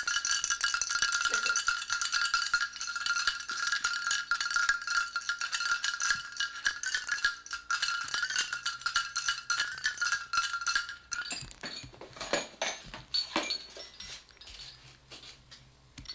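A steady, high ringing tone with fast rattling clicks over it, which stops about eleven seconds in; then a few scattered light clicks and knocks.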